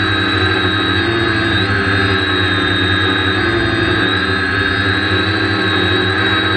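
Quadcopter's electric motors and propellers whining steadily, heard close up from the onboard camera. The pitch wavers up and down a little with throttle changes.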